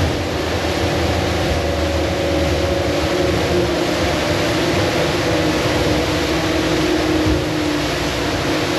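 Contender 39ST center-console boat running steadily at speed: its outboard engines give a steady tone under a rush of wind and water noise.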